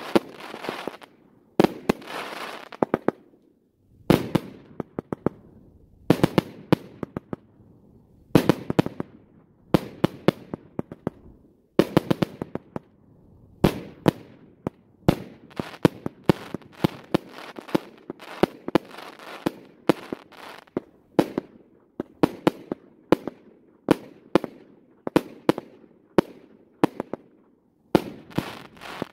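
Aerial fireworks going off shot after shot: sharp reports, often in quick pairs, every second or so, many followed by crackling as the stars burst.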